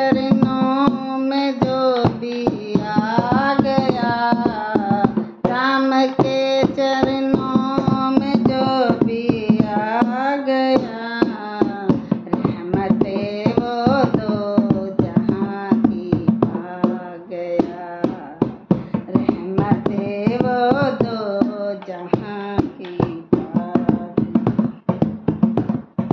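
A woman singing a Hindi devotional bhajan to Ram, with a dholak hand drum beating a quick, steady rhythm under her voice.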